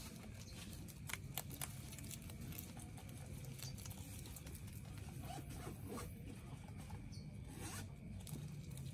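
Young rabbits chewing and tearing fresh leafy greens: quick, rasping crunching of stems and rustling leaves, with a few sharper snaps about a second in.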